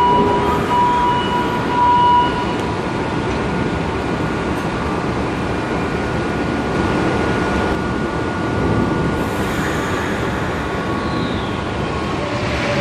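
MR-63 rubber-tyred metro train running past along the platform, a steady rumble of the train in motion. A high steady tone sounds over it for the first two seconds, then stops.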